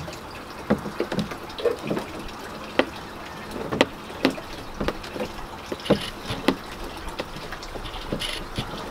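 Screwdriver turning the worm screw of a hose clamp on clear vinyl tubing, giving irregular small clicks and ticks as it tightens.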